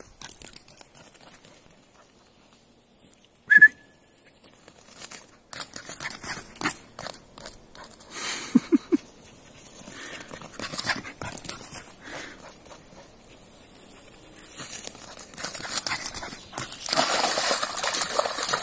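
A single short, sharp whistle about three seconds in, then scattered small knocks and rustles; near the end, a dog splashing through a muddy rain puddle, the water sloshing noisily.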